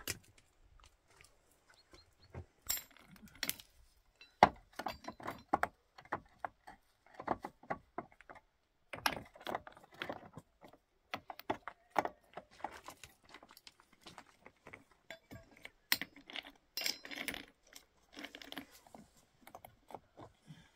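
Irregular light clinks and knocks of hard objects being handled, coming in short clusters with brief pauses between.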